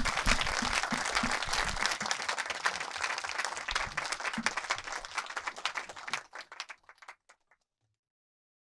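Audience applauding, dense at first, then dying away to a few scattered claps about seven seconds in.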